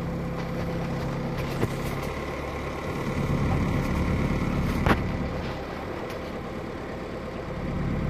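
Engine of an all-terrain vehicle idling steadily while stopped, with a single sharp click about five seconds in.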